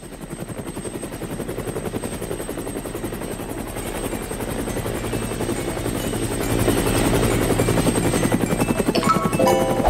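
Helicopter sound effect: a fast, even rotor chop that grows steadily louder as the cartoon helicopter approaches.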